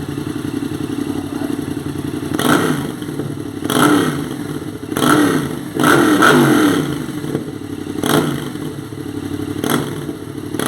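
Yamaha MT-07 parallel-twin engine idling, then revved in about six quick throttle blips, each one's pitch falling back to idle.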